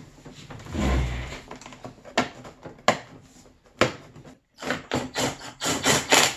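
Plastic console centerpiece of a snowmobile being set in place and pressed down by hand. A dull thump comes about a second in, then a few separate knocks, then a quick run of clicks and taps near the end as the panel seats.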